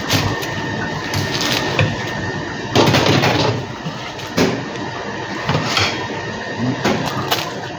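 A knife cutting through the crisp, flaky crust of a baked Bosnian börek on a plastic cutting board, in irregular crunching, scraping bursts, the loudest about three seconds in.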